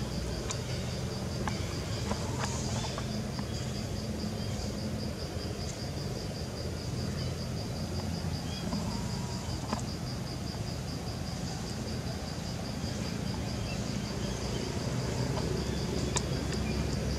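Steady, high-pitched pulsing insect trill, with a low rumble underneath and a few faint ticks.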